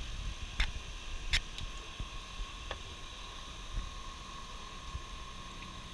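Handling noise on the plastic back cover of an LCD TV: two sharp clicks in the first second and a half and a fainter one near three seconds in, over a steady hiss with a faint high hum.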